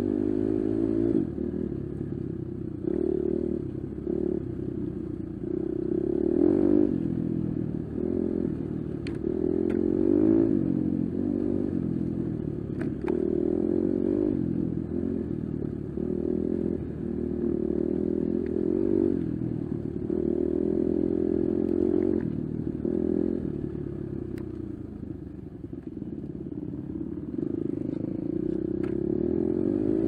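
Four-stroke enduro dirt bike engine being ridden, revs rising and falling continually as the throttle is worked, with occasional sharp clacks.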